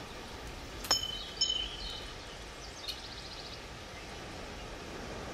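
A coin flicked into the air: a sharp metallic ping about a second in with a high ringing tone, a second ringing ping half a second later, then a fainter rapid fluttering ring.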